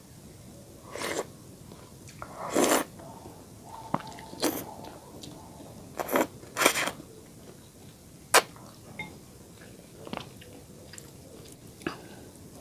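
A person slurping and chewing a mouthful of instant noodles. There are several loud slurps in the first seven seconds, then quieter chewing with a few sharp clicks.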